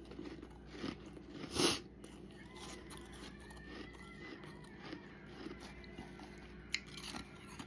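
A person biting into and chewing crunchy frost, with one loud crunch a little under two seconds in and softer crunches after, and a sharp snap near the end.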